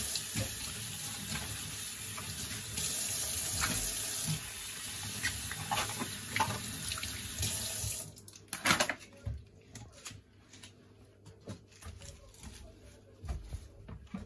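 Kitchen tap running into a stainless-steel sink, cutting off abruptly about eight seconds in. After that come scattered knocks and clatter of plastic containers being handled, with one loud knock just before the ninth second.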